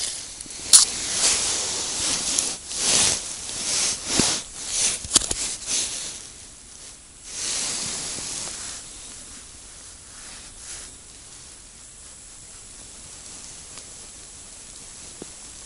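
Snow and slush crunching and scraping as a wooden-handled ice scoop clears an ice-fishing hole: a run of irregular swishes over the first seven seconds or so, then a quieter steady hiss.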